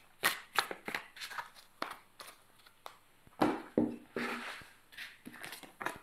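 A deck of oracle cards being shuffled by hand: a string of quick, irregular soft slaps and clicks as cards drop from one hand onto the other, with cards then set down on a cloth-covered table near the end.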